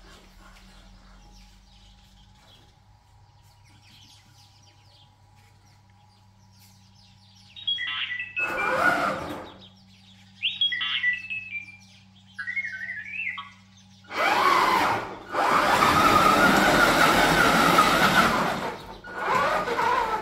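DIY R2-D2 replica: after a few seconds of faint steady hum, its speaker plays short electronic beeps and warbling whistles in three bursts. For the last six seconds or so its drive motors run with a loud whine that wavers in pitch as it rolls.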